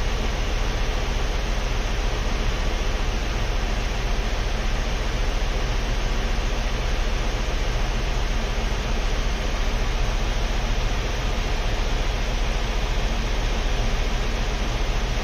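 Steady rushing noise with a low hum from a running 2016 Ford Explorer, heard at its open front end where the bumper cover is off.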